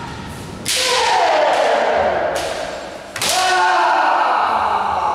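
Kendo kiai shouts with the sharp cracks of bamboo shinai strikes. Less than a second in, a crack comes with a long shout that falls steadily in pitch. Another crack follows near the middle, and a third crack about three seconds in comes with a second long, held shout.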